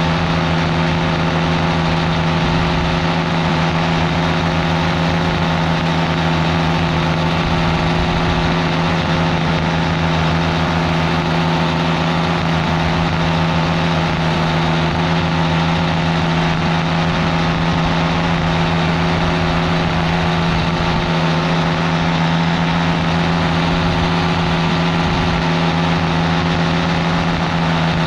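Paramotor engine and propeller running at a steady cruise setting in flight, a constant drone with no change in pitch, mixed with rushing air.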